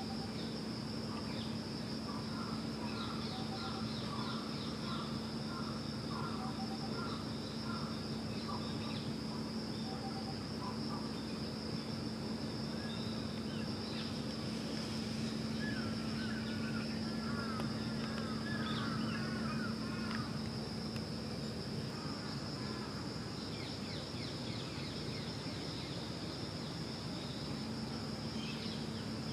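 Outdoor ambience: a steady high-pitched insect drone over a low steady hum, with bursts of quick bird chirps in the first third and again a little past halfway.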